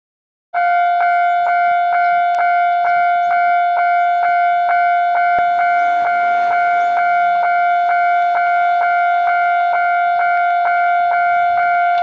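Japanese level-crossing warning bell ringing: a repeating electronic ding about twice a second that starts about half a second in, signalling an approaching train.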